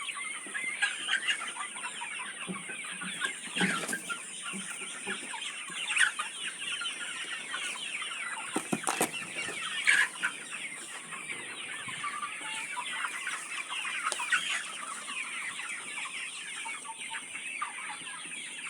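A large flock of chickens calling, with many overlapping clucks and cheeps forming a continuous din and a few louder calls standing out.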